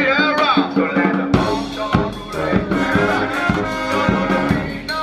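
A New Orleans street brass band playing: trumpets, trombones, saxophone and sousaphone over a steady snare and bass-drum beat.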